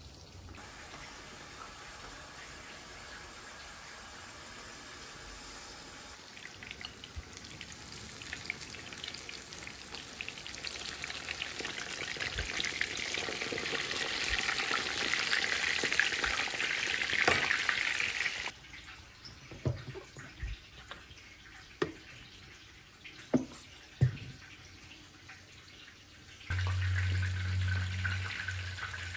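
Crumbed fish fillets shallow-frying in hot oil in a pan, sizzling louder and louder until the sound cuts off suddenly about two-thirds of the way through. A few sharp taps of a spatula in the pan follow, then a steady low hum starts near the end.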